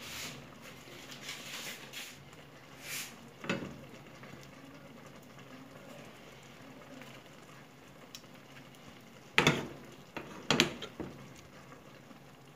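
Solid pork lard being spooned into a non-stick frying pan, with a few sharp knocks of the spoon against the pan, the loudest two about nine and ten and a half seconds in.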